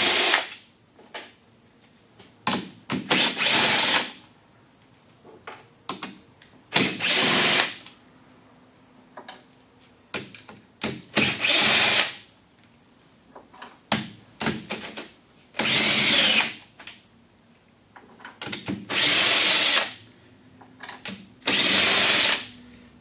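Cordless drill-driver spinning out the fasteners that hold the bus bars on lithium-ion battery modules, in about seven short runs of roughly a second each. Small metallic clicks sound between the runs.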